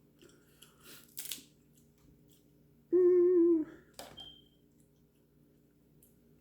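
A person's appreciative "mmm" hum while eating, just under a second long, about three seconds in. Quieter eating noises surround it: a short crackle about a second in and a click right after the hum.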